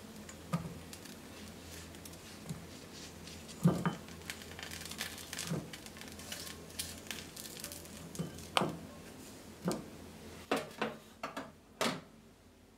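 Metal kitchen tongs moving grilled vegetable slices into a glass food container: scattered light clicks and taps of metal on glass, a dozen or so over several seconds.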